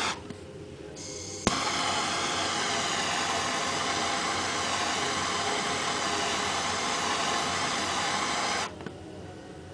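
Small handheld gas torch flame hissing steadily as it heats heat-shrink tubing on soldered wires. There is a short hiss right at the start, then a click about a second and a half in, after which the loud, steady hiss begins. The hiss cuts off abruptly about a second before the end.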